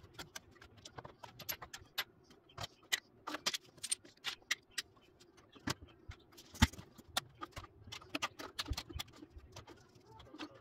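Irregular clicks, clinks and light knocks of makeup brushes, cosmetic bottles and jars being picked up, moved and set down on a wooden shelf and into a wicker basket, with one sharper knock about six and a half seconds in.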